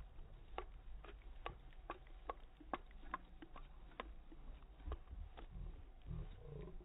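Slowed-down outdoor ambience from slow-motion phone video, faint and deep, with a regular ticking about two to three times a second that fades after about five seconds, then a few low, drawn-out sliding sounds near the end.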